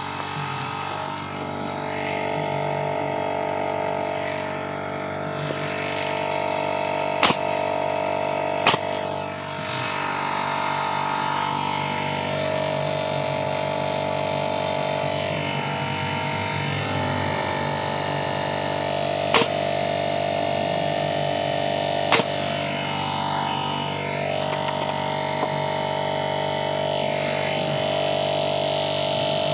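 Small portable air compressor's motor and pump running steadily to refill its tank after the air was drawn down by nailing. A pneumatic framing nailer fires four sharp shots over it, two about seven to nine seconds in and two about nineteen to twenty-two seconds in.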